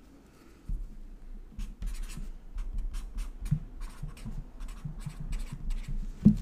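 Pen writing on a sticky note: a run of short scratchy strokes, starting about a second in, with soft low knocks of the pad against the surface underneath.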